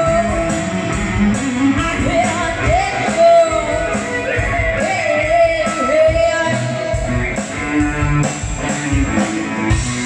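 Live rock band playing through PA speakers: a woman singing over electric guitar and a steady drum beat.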